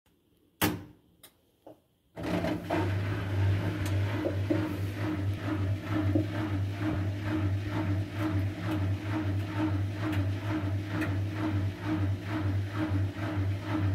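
Washing machine starting: a sharp click and two faint ones, then about two seconds in its motor starts running with a steady low hum and a regular pulse about three times a second.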